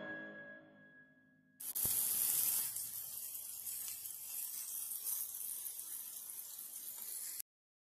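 Potato fries deep-frying in a pot of hot oil: a steady bubbling sizzle that starts suddenly about a second and a half in and cuts off abruptly near the end.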